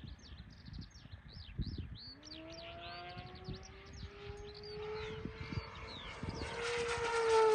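Birds chirping in quick repeated calls, while from about two seconds in the Typhoon 10S electric RC speed plane's motor comes in as a whine that rises slowly in pitch and grows louder toward the end as the plane approaches, drowning out the birds.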